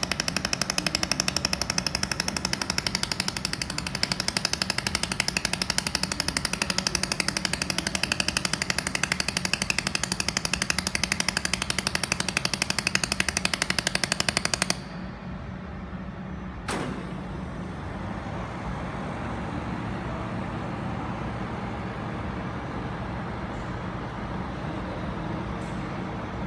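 Pulsed laser welder firing a fast, steady train of sharp pulses as it welds a stainless steel pipe on a rotary fixture. The pulsing stops abruptly about fifteen seconds in. A single click follows, then only a steady low machine hum.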